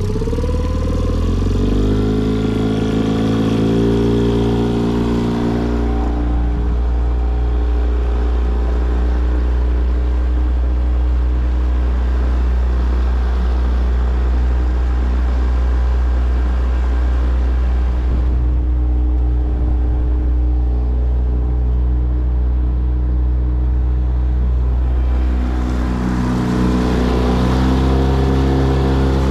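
Outboard motor on a Crestliner 1650 Fish Hawk aluminium fishing boat running under power during a speed test. It speeds up over the first couple of seconds, holds a steady pitch, then speeds up again near the end.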